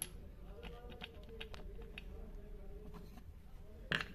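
Faint metallic clicks and taps of parts being handled on an angle grinder's spindle as the flange is seated, with a louder clack about four seconds in as the cutting disc is set in place.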